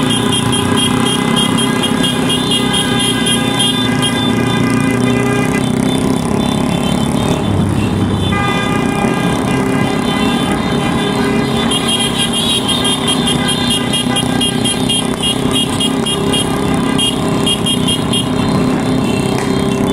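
Many motorcycle horns sounding at once, several steady horn tones held together, with a fast pulsing beep on top, over running motorcycle engines.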